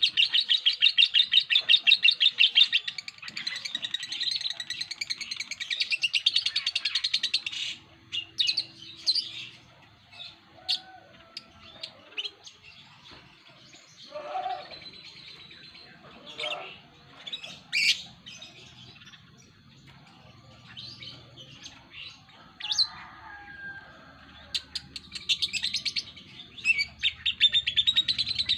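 Lovebird ngekek: a long, rapid chattering run of high notes for about seven seconds, then scattered single chirps, then another rapid run starting a few seconds before the end.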